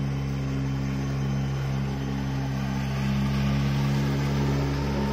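Outboard motor of an inflatable rescue boat running at a steady speed, a constant low hum over a steady rushing hiss.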